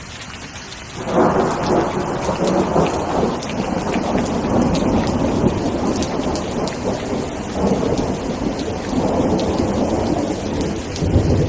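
Steady rain with thunder. A rumble of thunder breaks in suddenly about a second in and rolls on, swelling again near the end.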